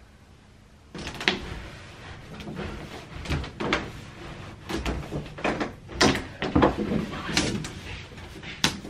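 Handling of a large aluminium Rimowa suitcase as it is hauled out of its cloth dust bag and paper shopping bag: rustling fabric and paper with irregular knocks and scrapes of the case. The handling starts about a second in.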